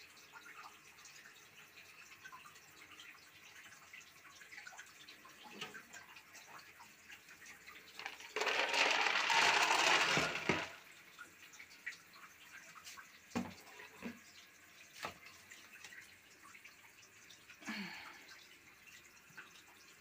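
Cat litter granules poured from a plastic scoop into a plastic litter tray: one steady pour of about two seconds, starting and stopping abruptly. A few separate light knocks follow.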